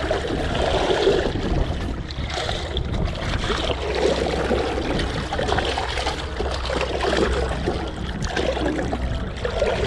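Shallow river current rushing and splashing around wading legs and a plastic bucket held in the flow, swelling and easing continuously.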